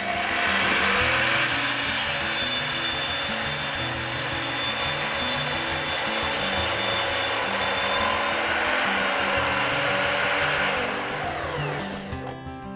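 Evolution Rage 255 sliding miter saw spinning up with a rising whine, then running and cutting through a workpiece with a loud, steady rasping for about ten seconds, before winding down near the end.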